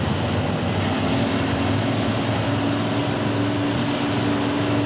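Super Stock drag car's engine running hard, a loud steady drone that rises a little in pitch about a second in and then holds.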